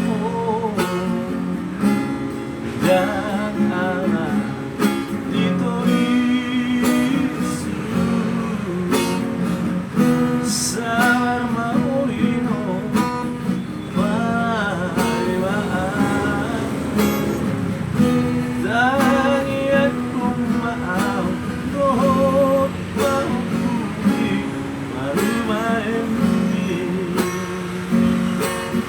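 Music: a strummed acoustic guitar with a wavering, vibrato melody line above it, most likely a singing voice.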